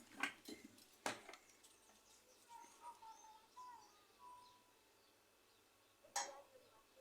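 Near silence with a few faint sharp clicks and taps of hand work on a circuit board during soldering. Faint bird chirps sound in the background in the middle.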